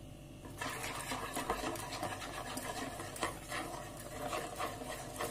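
Wire whisk beating flour into a runny batter in a mixing bowl, a steady scratching and rubbing of the wires against the bowl with small ticks. It starts about half a second in. This is the first glass of flour being mixed into the wet ingredients of a yeast dough.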